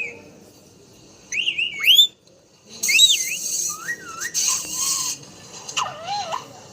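Pet parrot whistling: a string of quick swooping whistles that rise and fall in pitch, with a harsher, raspier stretch in the middle.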